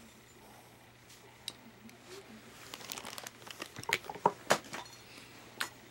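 Close rustling and crinkling with sharp clicks, beginning about three seconds in after a quiet start: clothing and hands moving against the camera and its microphone.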